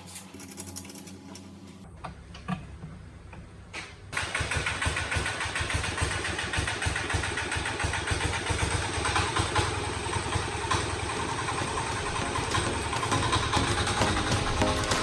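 A small engine starts about four seconds in and keeps running with a rapid, even firing beat, growing a little louder toward the end. A couple of knocks come before it starts.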